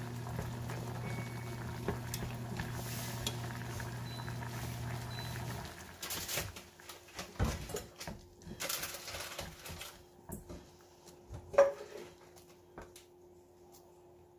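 Water boiling in a steel saucepan with a steady hum, which stops about six seconds in; then scattered metal clinks and knocks of the pot, a mesh strainer and chopsticks as the blanched rice straw is lifted out, with one sharp clank the loudest.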